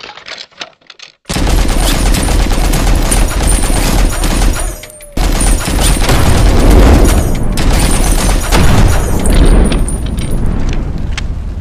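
Machine-gun fire sound effect: a rapid, continuous burst that starts about a second in and runs for about four seconds. After a brief break comes a loud explosion with a long rumble that slowly eases off.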